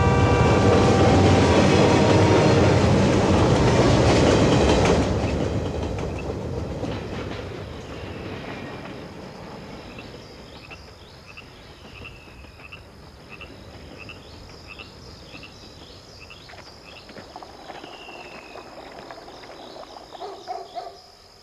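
Diesel locomotive passing with its air horn sounding for about five seconds over a heavy engine and rail rumble. The train noise then fades away, leaving faint short high chirps. A few brief pitched notes come in near the end.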